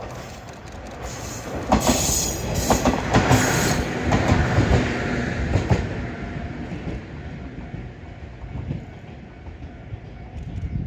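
105 series electric train passing, its wheels clacking over the rail joints in quick strikes, loudest in the first few seconds, then fading away.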